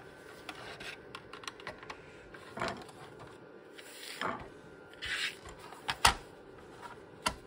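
Clicks, knocks and brief scrapes of a plastic home-computer case being handled and opened after its screws are taken out. The sharpest click comes a little after six seconds in, with another just before the end.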